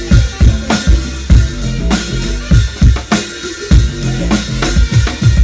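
Live band music heard close to an acoustic drum kit: heavy kick-drum and snare hits with cymbals, over a moving bass line.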